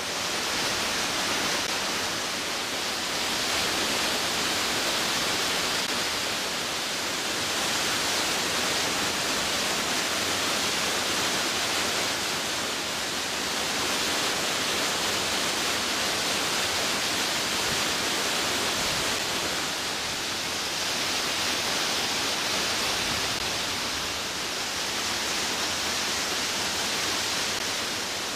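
Waterfall rushing: water pouring over rock ledges in a steady roar that swells and eases slowly every several seconds.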